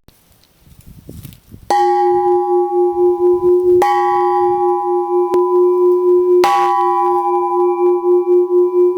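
Bell made from a cut-down carbon-steel compressed air cylinder, struck three times about two seconds apart. Each strike rings on in a deep, sustained tone that pulses evenly as it hangs in the air.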